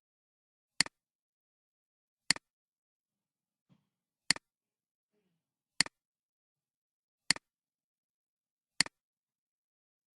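Six sharp double clicks, each a quick click-click, repeating about every one and a half seconds with dead silence between them.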